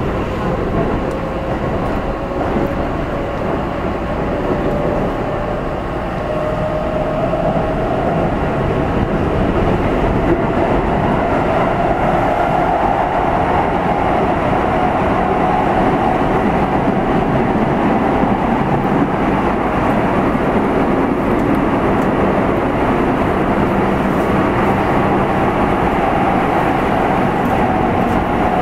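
Keihan 8000 series electric train with Toyo Denki field-phase control running on the line, a steady rumble of wheels and running gear. Over it a motor whine rises slowly in pitch over the first fifteen seconds or so, then holds, as the train gathers speed.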